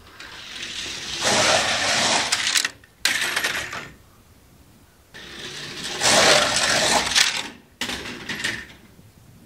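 LEGO stunt car's plastic wheels clattering along LEGO train track as it runs the vertical loop. The clatter comes in two long swells and two shorter ones, each rising and then stopping abruptly.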